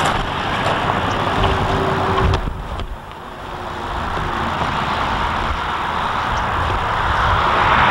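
Highway traffic: a steady rush of cars and trucks going by. It fades about two and a half seconds in as one passing vehicle recedes, then swells again as more approach.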